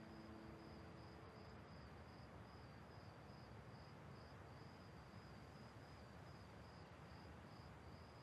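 Faint crickets chirping in an even, repeating pulse over a low hiss.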